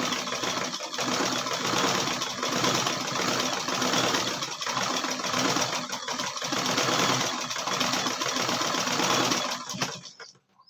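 Black sewing machine running steadily while stitching a zigzag seam across a torn shirt hem, then stopping abruptly near the end.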